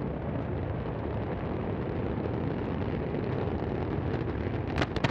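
Deep, steady rumble of the Antares rocket exploding and burning over its launch pad seconds after liftoff, with a few sharp cracks near the end.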